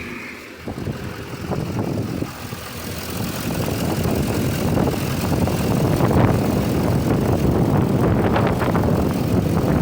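6.6 L Duramax V8 turbo-diesel of a 2015 Chevy Silverado 3500 idling, a steady rough diesel run that grows louder over the first few seconds and then holds level.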